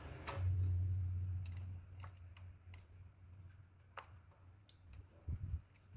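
Sparse, sharp metallic clicks from a hand tool working on the engine's ignition coils and spark plugs as they are tightened down. A low hum fades out over the first two seconds.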